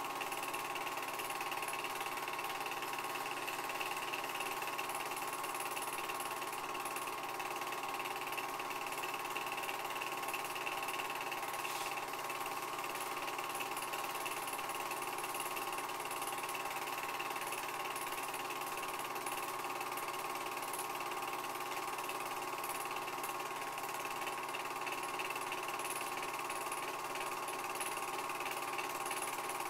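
Home-movie film projector running with a steady mechanical whir.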